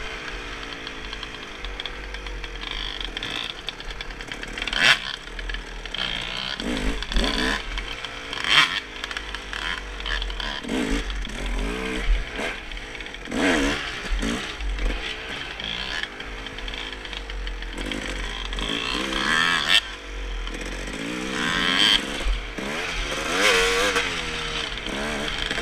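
Dirt bike engine being ridden along a bumpy trail, revving up and falling back again and again as the throttle opens and closes, with a few sharp knocks from the bumps.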